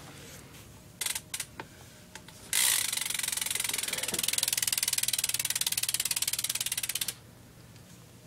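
BMX rear hub freewheeling as the back wheel is spun: its pawls ratchet in a rapid, steady run of clicks for about four and a half seconds, then stop abruptly. A few separate clicks come about a second in.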